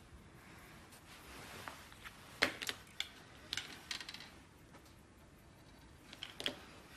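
Faint, sharp clicks and taps of small metal watchmaking tools against metal at a watchmaker's bench, in a few short clusters: a couple of clicks about two and a half seconds in, more around three and a half to four seconds, and a last pair near the end.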